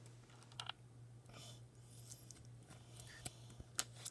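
Faint, scattered clicks and light taps of small plastic toys and a toy necklace being handled, over a steady low hum.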